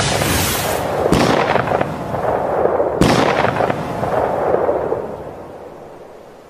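Two hunting rifle shots about two seconds apart, each a sharp crack followed by a rolling echo that dies away over a few seconds.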